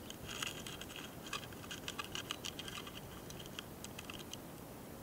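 A mating pair of small longhorn beetles (hosotora-kamikiri, Rhaphuma xenisca) making rapid, irregular tiny clicks and ticks, recorded very close, over about four seconds before they die away near the end.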